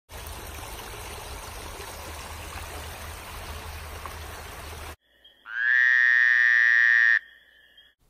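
Creek water rushing over rocks, a steady hiss that cuts off abruptly about five seconds in. Then a single loud frog call, one long held note that rises a little in pitch as it starts and lasts under two seconds, with fainter steady calls behind it.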